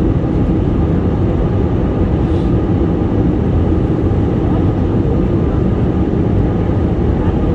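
Airplane noise during landing: a loud, steady low rumble that does not change.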